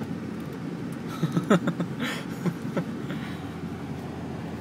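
A car driving through snow, heard from inside the cabin as a steady low rumble of engine and road noise, with a short burst of voice about a second and a half in.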